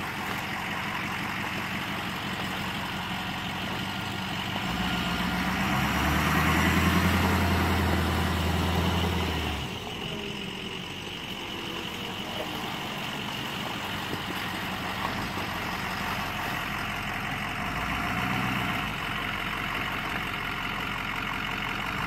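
Ford pickup truck's engine running as it backs up through mud. It revs harder under load for a few seconds, about five seconds in, then settles back to a steady run, with a smaller rise near the end.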